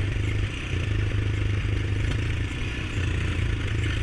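Honda ATV's single-cylinder four-stroke engine running steadily as the quad rides along a desert trail, a low even drone.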